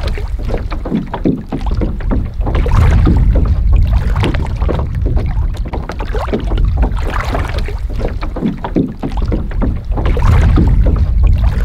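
Small lake waves slapping and gurgling against a beached canoe's hull and the shallow rocky shore, swelling and easing every few seconds. Wind rumbles on the microphone throughout.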